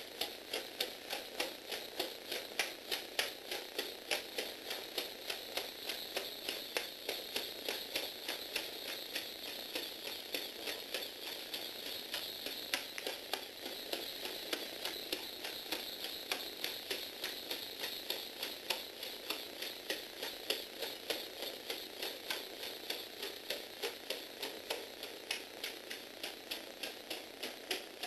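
Lego Technic four-legged walking robot: its plastic feet and linkages click on a wooden floor about two or three times a second, over the steady whir of its Lego Power Functions motor and gears.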